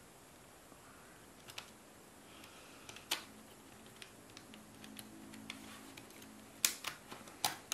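Small screws and a screwdriver clicking and tapping against a clear acrylic Raspberry Pi 4 case as it is screwed together: a few sharp clicks over faint handling, the loudest two near the end.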